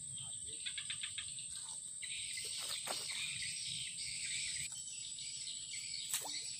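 Insects trilling steadily: one high, thin, unbroken note, joined for a couple of seconds in the middle by a louder buzzing chorus.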